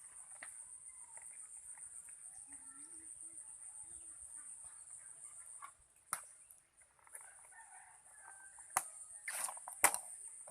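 Chickens clucking faintly over a steady, high-pitched pulsing hiss. The hiss drops out about six seconds in, and a few sharp knocks and a short rustling burst follow near the end.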